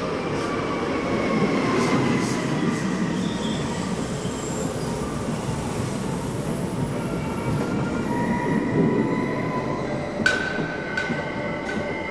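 Alstom Régiolis electric multiple unit rolling slowly along the platform: a low rumble of wheels on rail with thin, steady brake and wheel squeal over it, and a few sharp clicks about ten seconds in.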